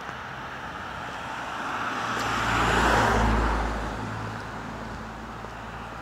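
A car passing by on the road, its tyre and engine noise building to a peak about halfway through and then fading away.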